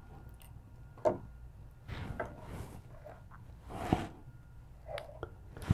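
Small clicks and light rattles of a metal link watch bracelet and a thin pin tool being handled while a band pin is fitted, a handful of separate clicks roughly a second apart, the loudest about four seconds in.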